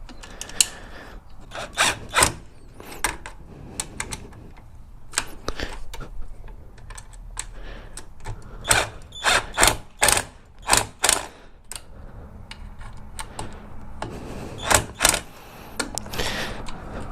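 Irregular mechanical clicks and clunks, one at a time with gaps between them, from the newly fitted shift lever and rearset of a 2014 Kawasaki Ninja 300 being worked.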